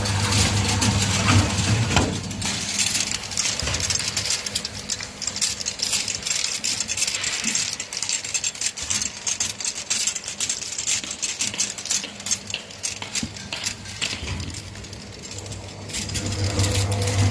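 Bottle washing machine running, with many quick clinks and rattles of bottles being handled and a steady hiss. A low motor hum stops about two seconds in and comes back near the end.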